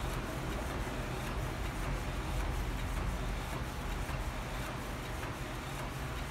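Epson L1300 inkjet printer running steadily mid-print as the sheet feeds out the front.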